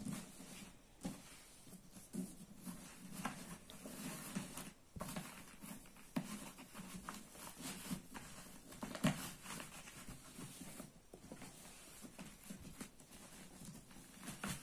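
Faint rustling and soft scattered taps of hands fitting and pressing the lid down onto a printed fabric-covered foldable storage box, with one firmer knock about nine seconds in.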